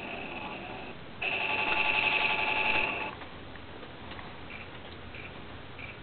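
Electronic beep tones played through a homemade hard-drive speaker: a long high beep that breaks off just before a second in, then a louder beep with lower notes under it for about a second and a half, then short faint blips repeating about every two-thirds of a second.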